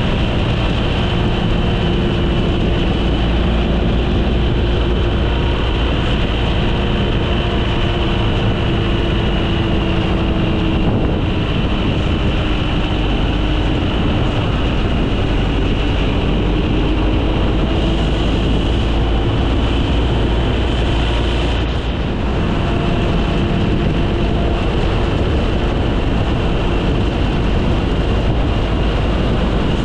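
Steady running noise of a moving vehicle: a heavy low rumble with a faint engine tone that drifts slowly up and down in pitch.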